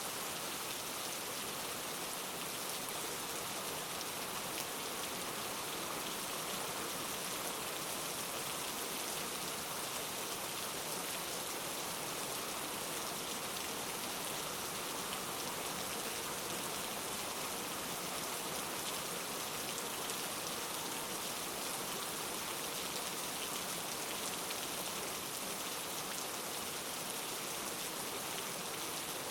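Steady rain falling on a surface: an even hiss of many raindrops, unchanging throughout.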